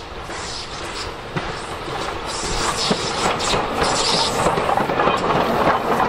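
Ivatt Class 2MT 2-6-2T steam tank locomotive 41298 and its carriages running past, growing steadily louder as the train approaches, with scattered sharp knocks.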